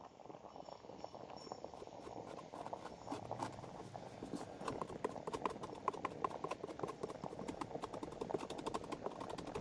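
A rapid, irregular series of small clicks and taps, sparse at first and growing denser and slightly louder over the last few seconds.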